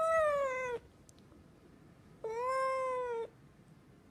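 Tabby cat meowing twice: two drawn-out meows of about a second each, the first ending just under a second in, the second starting about two seconds in and rising then falling in pitch.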